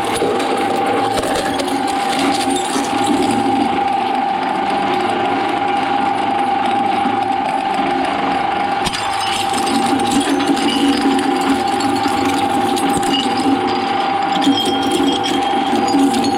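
Shredder machine running, a steady motor whine with dense rattling clicks from the material being chewed up; the sound gets fuller about nine seconds in.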